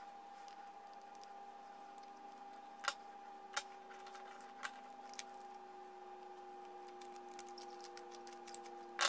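Scattered light clicks of small wooden hinge pieces and dowels knocking together as they are assembled and swung, over a faint steady hum.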